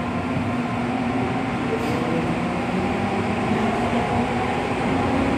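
Interior running noise of an MTR M-train car: a steady hum from the motors and the air-conditioning over wheel and track noise, growing gradually louder as the train gathers speed.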